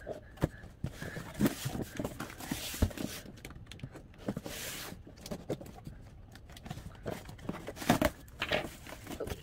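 Scissors slitting the packing tape along a cardboard box's seam, heard as scattered clicks, knocks and short scraping hisses, then the cardboard flaps being pulled open with a louder rustle about eight seconds in.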